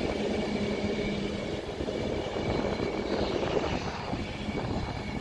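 Class 390 Pendolino electric train pulling slowly out of the platform: a steady electric hum with fainter higher whines from its traction equipment over rumbling wheel noise, fading slightly as it draws away.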